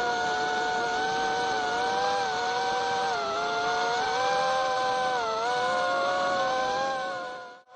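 A small engine or motor running steadily with a constant hum that wavers slightly in pitch, fading out near the end.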